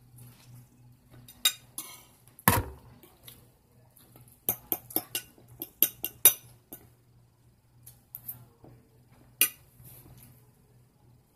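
A fork clinking and tapping against a dinner plate: one loud knock about two and a half seconds in, a quick run of clinks around the middle, and one more clink near the end.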